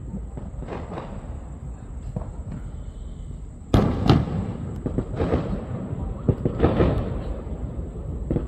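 Scattered sharp bangs over a low rumble, the loudest about three and a half seconds in, followed by several smaller ones.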